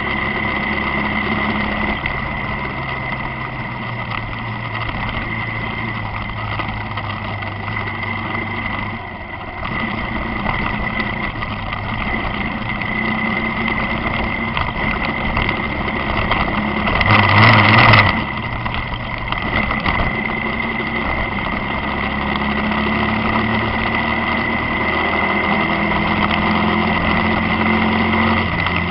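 Motorcycle engine running on the move, its pitch shifting a couple of times, under a steady high whine. A brief loud noisy burst about 17 seconds in.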